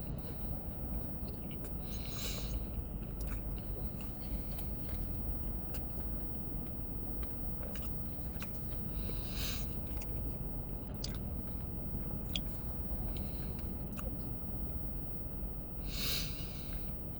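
Close-up chewing and biting into an Arby's Gobbler turkey sandwich with crispy onions, with small wet clicks and three short hissy sounds about 2, 9 and 16 seconds in, over a steady low hum.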